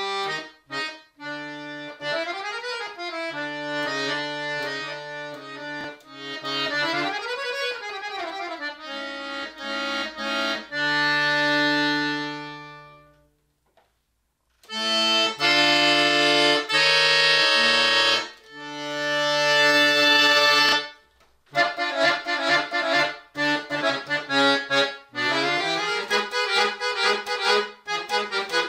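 Solo chromatic button accordion playing a classical concert piece: quick running scales over held bass notes, then a long chord that swells and dies away into a brief pause about halfway through. It comes back with loud full chords, a short break, and a faster passage of short, detached notes.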